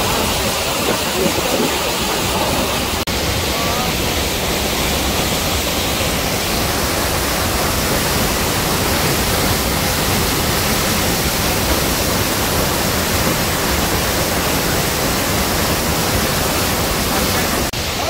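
Large waterfall in heavy flow: a loud, steady rush of water crashing down into its plunge pool.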